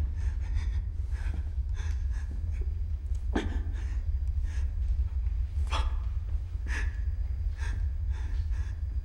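A person breathing heavily in quick, uneven gasps close to the microphone, over a steady low rumble.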